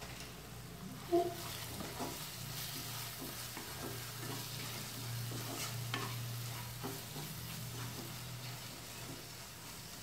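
A spatula stirring and scraping thick spiced onion-tomato masala as it fries in a non-stick kadhai, with a light sizzle of oil. There is a sharp knock about a second in, then steady scraping strokes about twice a second over a low hum.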